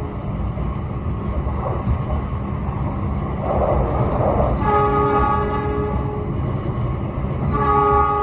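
Indonesian passenger train's locomotive horn sounding a multi-tone blast of about two seconds a little past halfway, then starting another near the end, over the steady low rumble of the train running.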